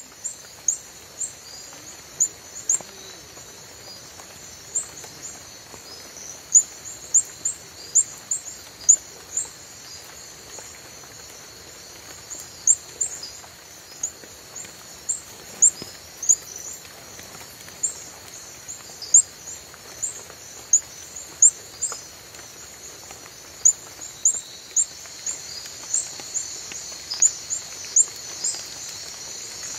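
Reticulated glass frog (Hyalinobatrachium valerioi) calling: short, sharp, high-pitched chirps repeated irregularly, about one or two a second, over a steady high-pitched background drone.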